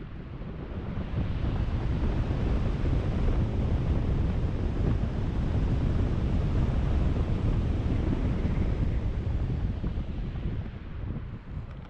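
Airstream buffeting the GoPro's microphone in paraglider flight, a rough low rumble that builds about a second in and eases off near the end as the glider comes out of steep banked turns.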